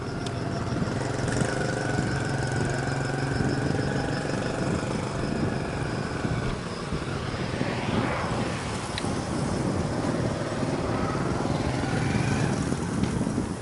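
Vehicle engine running steadily while travelling, over a rough rumble of wind on the microphone.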